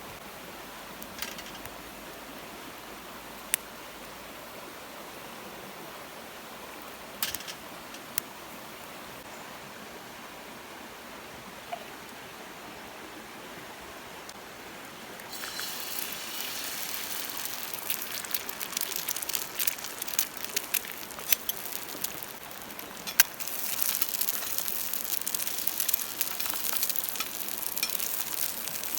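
Steady open-air background with a few isolated sharp clicks. About halfway through, a dense crackling of many rapid pops starts suddenly and keeps going, easing briefly before picking up again. It comes from the cooking fire or the food cooking over it.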